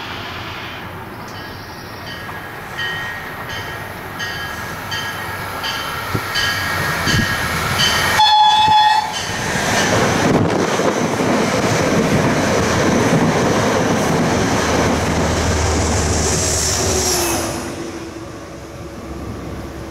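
Metro-North push-pull train led by a Bombardier Shoreliner cab car sounding its horn as it approaches, then running past with a loud rumble of wheels on rail that fades away near the end.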